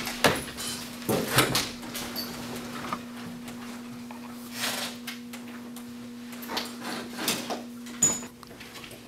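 Scattered knocks and rustling over a steady low hum, with a sharp knock about eight seconds in.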